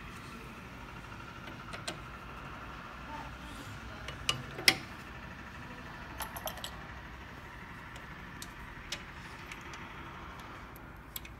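Scattered small clicks and taps of metal parts being handled as the belt and shaft are fitted on a 3D printer's extruder bracket, the sharpest about halfway through, over a steady low hum.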